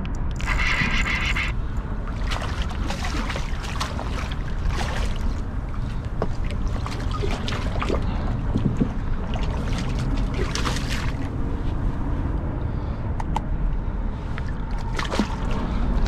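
Steady low rumble of wind and water around a fishing kayak, with scattered light knocks. For about the first second and a half a fishing reel is being cranked.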